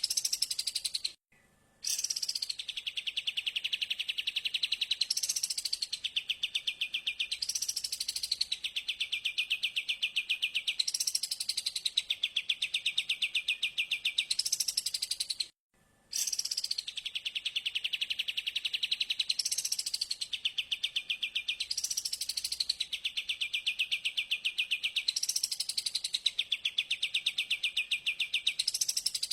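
Looped recording of a songbird's rapid, continuous chirping trill with a quick high sweep every couple of seconds, used as masteran to train or excite other birds. The track cuts out briefly twice where the loop restarts.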